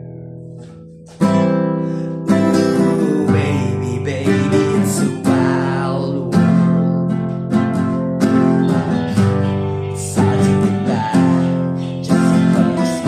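Acoustic guitar strummed: a chord rings out and fades, then steady rhythmic strumming of chords starts again about a second in.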